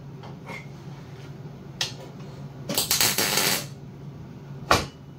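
Steel engine-mount bracket handled on a steel workbench: a click about two seconds in, a second of jangling metal clinks, then a sharp metal clunk near the end. A steady low hum runs underneath.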